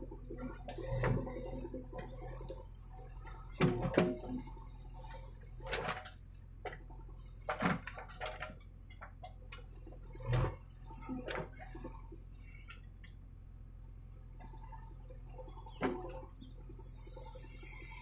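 JCB backhoe loader's engine running steadily as the rear bucket digs and swings through earth, with irregular clanks and knocks from the bucket and arm. Faint bird or insect chirps sound in the background.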